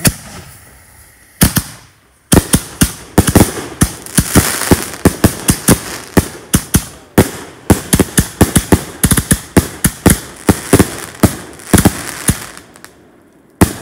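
A multi-shot fireworks cake firing. A bang at the start and another a second and a half in, then a rapid string of sharp bangs, several a second, for about ten seconds, and one last bang near the end.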